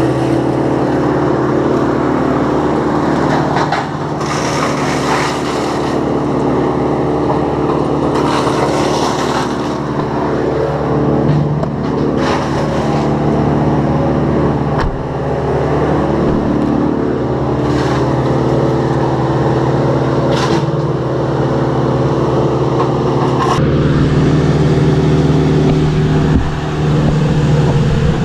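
A motor engine running steadily, with short bursts of rushing noise now and then.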